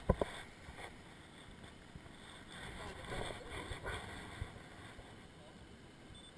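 A sharp knock right at the start, then handling noise and a soft steady hiss aboard a small aluminum fishing boat, with faint, indistinct voices around the middle.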